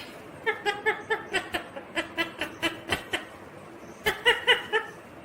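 Indian ringneck parakeet chattering in quick runs of short, chuckle-like notes, with a couple of sharp clicks in between.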